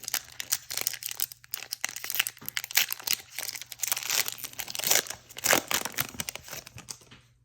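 Foil wrapper of a Pokémon trading-card booster pack crinkling and tearing as it is opened by hand, a dense run of crackles that dies away near the end.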